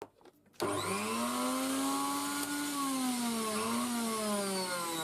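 Mixer grinder's electric motor switched on, spinning up fast with a whine that rises in pitch, then running with the pitch slowly sagging and dipping a little past the three-second mark.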